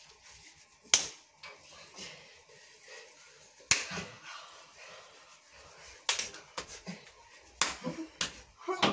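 Sharp hand claps and slaps, about six irregularly spaced strikes, with laughing and panting between them.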